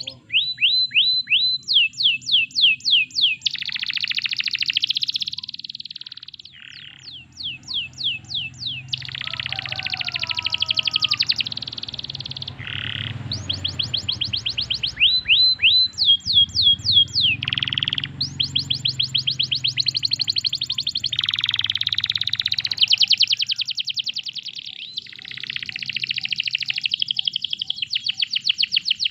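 Domestic canary singing: phrase after phrase of fast trills made of repeated high, downward-sweeping notes, some rolls slower and some very rapid, with short breaks between phrases. A faint low hum runs underneath.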